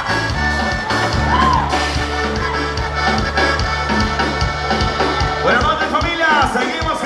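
Live band dance music, loud and continuous, with a steady bass line under a regular beat and a gliding lead melody.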